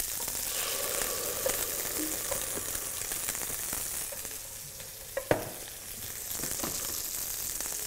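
Poularde breasts frying in hot oil in a pan, a steady sizzle with crackling skin, and one sharp clink about five seconds in.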